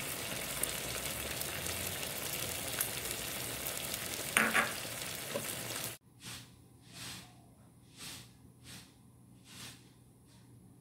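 Asam rebus broth at a rolling boil in a nonstick pan: a steady bubbling hiss with a short clink about four seconds in. The sound cuts off about six seconds in, leaving a quiet track with faint soft puffs of noise about once a second.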